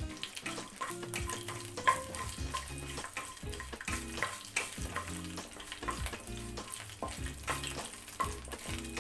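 Whole spices (bay leaves, cloves, cinnamon stick, star anise) frying in hot oil in a nonstick pan, a light sizzle, while a wooden spatula stirs them with many short clicks and scrapes against the pan: the spices are being tempered before the masala paste goes in.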